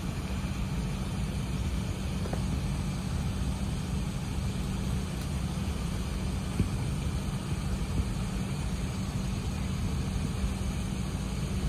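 Steady low rumble of an Airbus A380's engines and air system heard inside the passenger cabin while the aircraft taxis, with two light knocks partway through.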